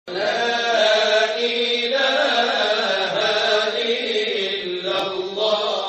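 A solo voice chanting in long, drawn-out phrases with a wavering pitch, as the sung intro to an Islamic lecture.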